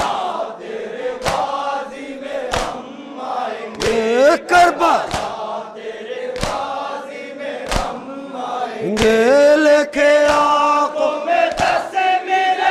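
A crowd of men chanting a Muharram mourning lament in unison, with sharp hand strikes on the chest (matam) landing roughly once a second.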